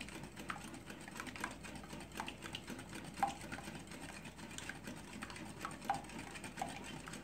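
Wire balloon whisk beating raw eggs and sugar in a glass bowl, its wires tapping the glass in a quick irregular run of light clicks over a soft swish. The eggs are being whisked until the sugar dissolves.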